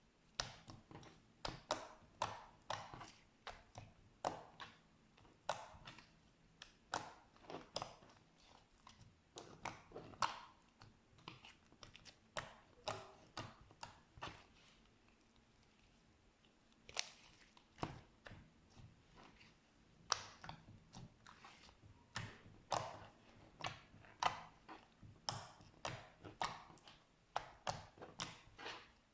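Slime being worked by hand: an irregular run of short sticky clicks and pops, two or three a second, with a pause of about two seconds about halfway through.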